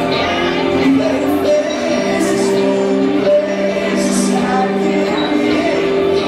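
Live indie rock band playing loudly, electric guitars holding sustained chords, with a singing voice over them.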